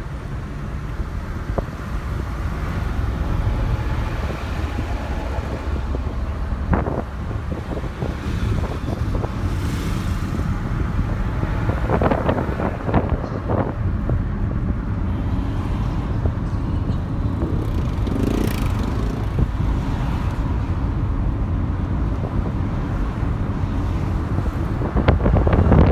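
Moving car heard from inside the cabin: a steady low rumble of engine and tyre noise, with scattered short knocks and clicks, getting louder near the end.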